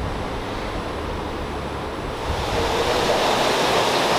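Wind buffeting the microphone with a low rumble. About two seconds in this gives way to a louder, steady rushing hiss of indoor market ambience among the live seafood tanks.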